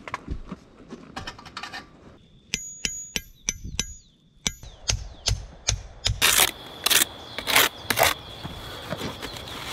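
About ten sharp metallic taps that ring, from a hammer striking, followed by four short scrapes of a steel trowel working mortar on concrete blocks.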